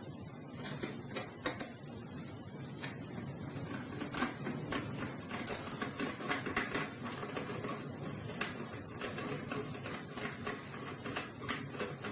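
Irregular light clicks and small metallic scrapes of a hand screwdriver working screws into a metal mounting bracket on the side of a DVD drive.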